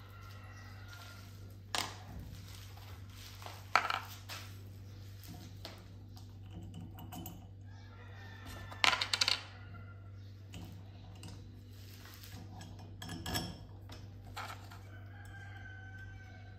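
Steel parts clinking and tapping on a workbench as a flat steel arm is handled: several separate sharp clinks, the loudest a quick rattling cluster about nine seconds in.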